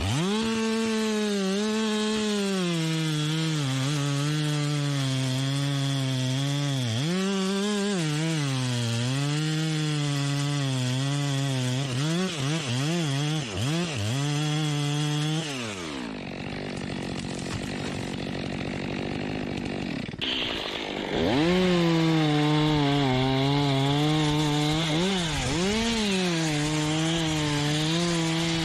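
Chainsaw running at high revs and cutting wood, its pitch sagging and recovering as the chain bites. About halfway through it drops back to idle for a few seconds, then revs up and cuts again.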